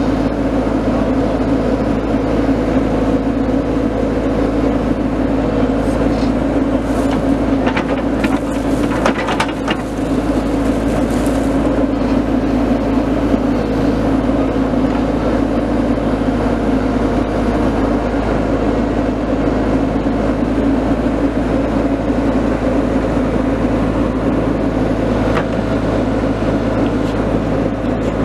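Hydraulic excavator's diesel engine running steadily as the arm and bucket work a pile of dirt and snow. A few short, sharp sounds come about a third of the way in.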